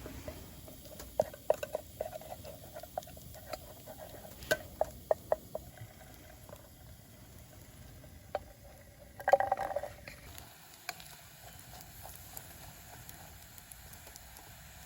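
Scattered light clicks and taps, with a short louder scrape or clatter about nine seconds in.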